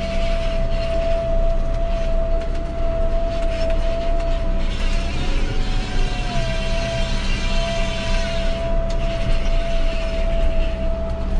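John Deere 6230 tractor heard from inside the cab, its engine running steadily under load pulling a subsoiler through the ground. A steady whine sits over the engine drone and briefly rises in pitch about five seconds in, with a hiss from about four and a half to nine seconds in.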